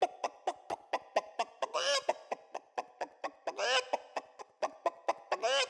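A man imitating a chicken into a microphone: short clucks at about four a second in a steady rhythm, broken three times by a longer, drawn-out squawk.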